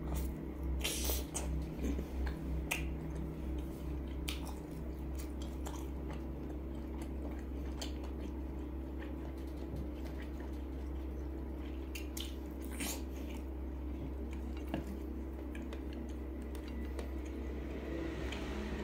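Close-up chewing and biting of grilled pork sausage (nem nướng), with wet mouth sounds and scattered sharp clicks. The chewing is rhythmic in the first few seconds, over a steady low hum.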